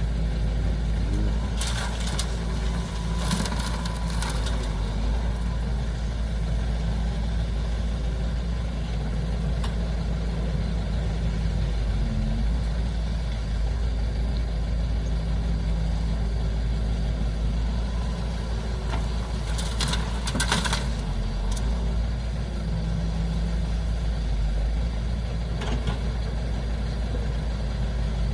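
Heavy construction machinery's diesel engine running steadily with a low hum, with a few short bursts of noise from the work: two near the start and a couple more about two-thirds of the way through.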